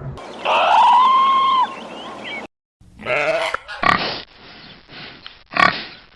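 Animal calls from two clips in a row. First comes one drawn-out call with a clear pitch that rises and then holds for about a second and a half. After a short break there is a run of short, rough grunts.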